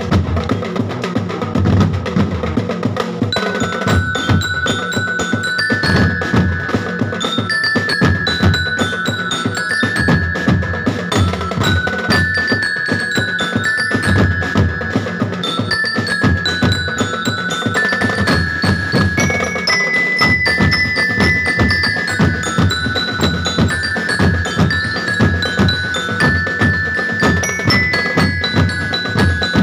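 Percussion band of marching bass drums and snare drums playing a steady beat, joined about three seconds in by a high, bell-like melody on a mallet instrument.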